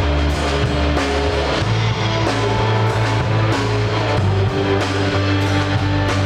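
Live band playing an instrumental passage: drum kit keeping a steady beat under bass and guitar, with the bass moving between sustained notes.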